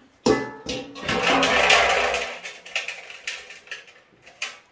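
Household objects being handled: sharp knocks and clatter, with a louder noisy stretch of about a second and a half in the first half.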